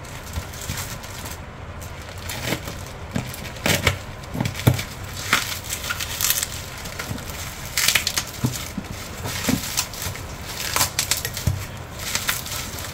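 Plastic courier mailer being opened by hand: irregular crinkling and crackling of the plastic as it is pulled apart.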